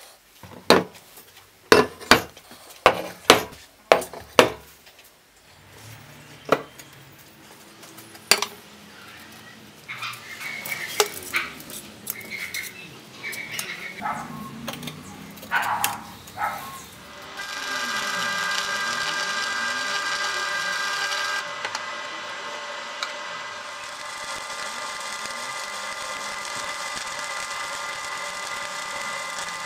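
A run of sharp metallic knocks in the first few seconds, then scattered handling clatter. From a little past halfway, a stick welder's arc crackles and hisses steadily.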